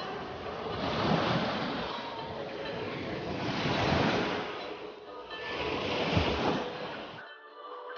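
Small waves washing up onto a sandy beach, the surf swelling and fading three times. It stops abruptly near the end, giving way to quiet music.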